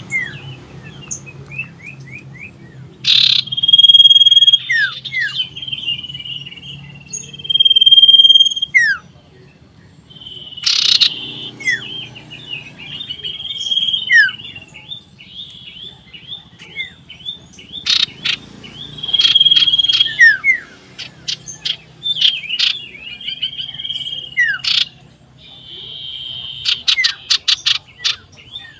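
Common iora (cipoh) singing loudly in repeated phrases: high held whistles, short falling slurred notes and rapid trills, with pauses between phrases.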